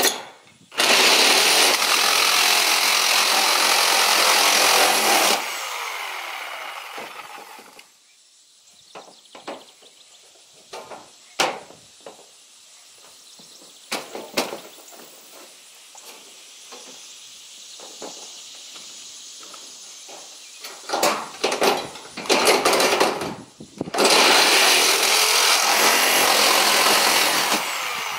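Corded reciprocating saw cutting through the corrugated sheet steel of a pole-barn sliding door. There are two long runs of loud cutting, one of about four seconds near the start and one in the last few seconds. Between them is a quieter stretch of scattered knocks and a few short bursts of the saw.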